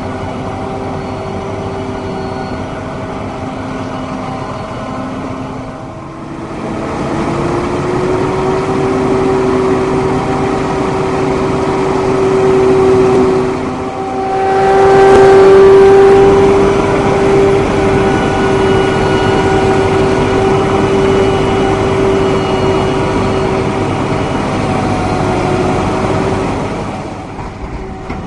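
Krone BigX 500 self-propelled forage harvester chopping Sudan grass: its engine and chopping drive run under load with a steady high whine. The sound grows louder about a quarter of the way in and is loudest around the middle.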